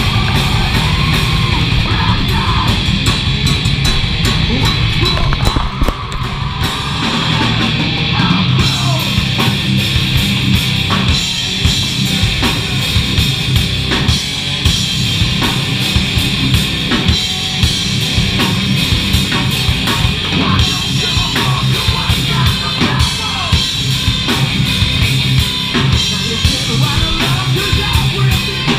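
Live heavy metal band playing loud: electric guitar and bass guitar over a drum kit, with dense, steady drumming and a brief dip in level about six seconds in.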